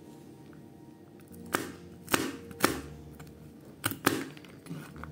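Large kitchen knife chopping walnuts on a plastic cutting board: about five sharp knocks of the blade hitting the board at an uneven pace, starting about a second and a half in.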